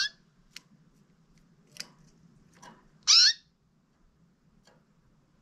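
Canary giving short, separate calls rather than a full song: a brief call at the very start, a softer chirp near two seconds, and a loud, brief call sweeping downward in pitch about three seconds in, with a few faint clicks between, over a low steady hum.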